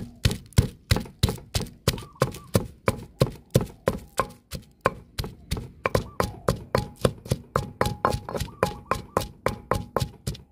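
Pestle pounding holy basil leaves and a shallot in a mortar to a pulp: a steady run of thuds, about four a second.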